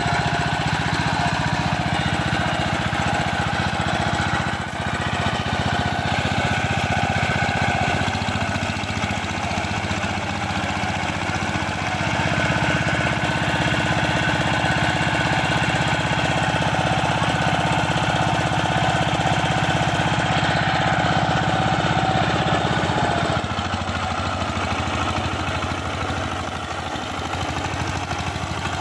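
Single-cylinder diesel engine of a two-wheel power tiller running steadily under heavy load as the machine is bogged in deep paddy-field mud. The engine note eases slightly near the end.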